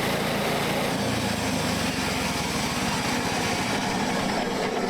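Small gasoline engine of a portable sawmill running steadily, its low hum shifting slightly about a second in.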